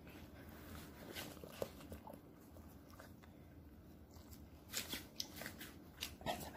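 Poodles nosing and shuffling around a hand held close by: faint rustling and soft clicks, with a few louder ones about five seconds in and again near the end.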